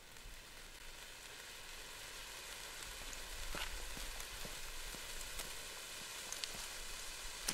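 Four small indoor ice fountains (Nico Eisfontäne sparkler fountains) hissing as they spray sparks, the hiss growing louder as more of them are lit, with a few sharp crackles.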